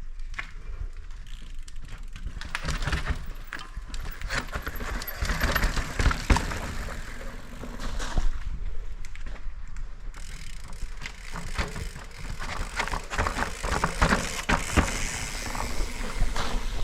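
Mountain bike descending a rocky trail: a continuous clatter of knocks and rattles as the tyres, chain and frame jolt over rocks, over a steady hiss of rolling and wind.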